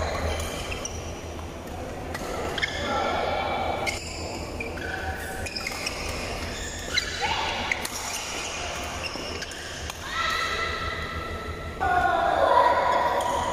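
Badminton rally: shoes squeaking on the court floor as players move, with a few sharp racket strikes on the shuttlecock.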